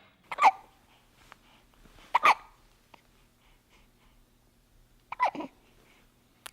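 Newborn baby hiccuping: three short, sharp hiccups, spaced about two to three seconds apart.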